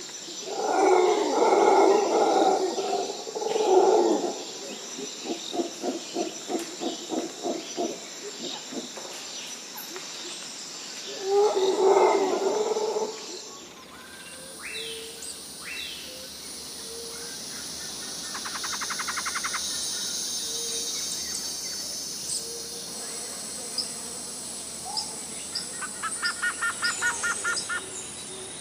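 Jungle sound-effect ambience. The first half holds loud animal calls and a run of rhythmic hoots, about two a second. About halfway through it changes abruptly to a steady insect and bird chorus, with scattered chirps and a fast trill near the end.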